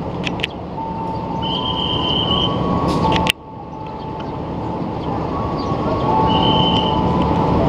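Rail noise of a red KRL Commuter Line electric train approaching on a curved station track, growing steadily louder, with brief high wheel squeals and a few sharp clicks. The sound cuts off abruptly about three seconds in and starts again quieter before building up.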